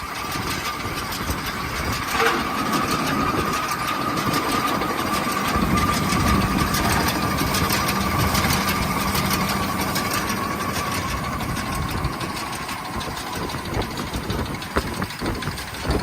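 Tractor engine running at a steady speed, with a thin steady whine that fades out a few seconds before the end. A deeper steady hum joins for several seconds in the middle.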